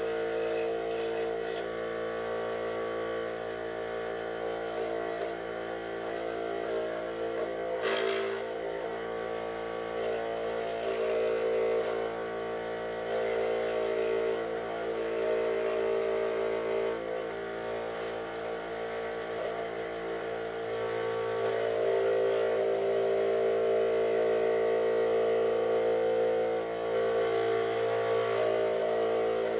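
Bench-top power saw motor running steadily while thin plywood is fed through it to cut out shapes, getting a little louder about two-thirds of the way in. A single sharp knock about eight seconds in.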